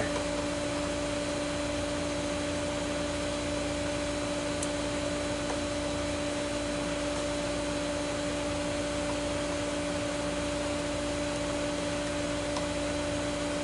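A machine running steadily: an even hiss with a constant low hum that never changes pitch.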